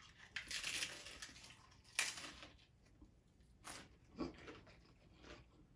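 A crunchy hard-shell taco being bitten and chewed: the shell crunches several times, the sharpest crunch about two seconds in, between softer chewing sounds.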